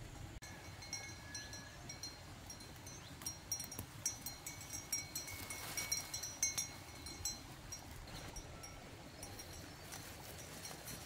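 Leafy plant stems being snapped off and a plastic bag crinkling as greens are picked by hand, in a quick run of short crackles and snaps. Short high chirps repeat throughout.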